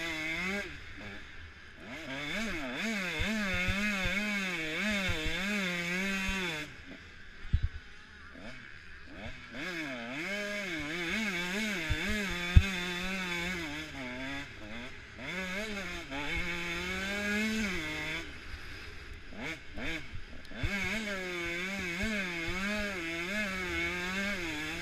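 Motocross bike engine ridden hard around a rough sand track, its revs rising and falling quickly and unevenly as the throttle is worked through bumps and ruts. Twice the engine drops away for a couple of seconds as the throttle is shut off, and there are two sharp knocks, about seven and twelve seconds in.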